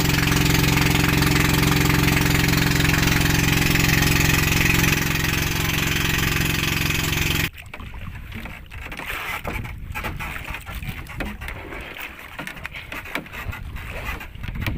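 Outrigger boat's engine running steadily at one speed while under way, stopping abruptly about halfway through. Quieter, uneven wind and water noise follows.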